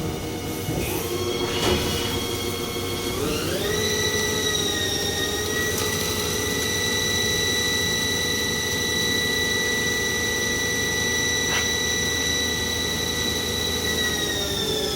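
2014 Haas ST-30 CNC lathe running, its spindle drive whining: the whine rises in pitch about three seconds in as the spindle speeds up, holds steady, and drops a little near the end. A few clicks come in the first two seconds.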